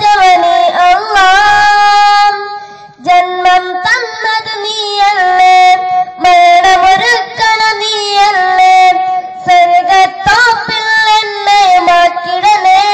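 A boy singing solo into a microphone, holding long notes with wavering, ornamented pitch, with a short break about two and a half seconds in.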